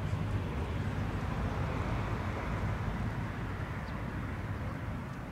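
Distant jet engines of an Airbus A319, a steady rumble that swells slightly in the middle and eases off near the end.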